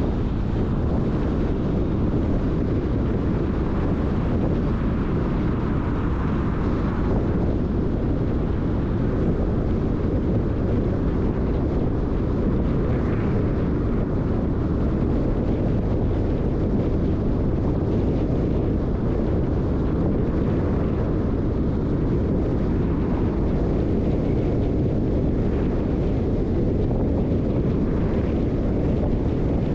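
Car driving at a steady speed: a continuous low rumble of tyres on the road and the engine, with some wind noise.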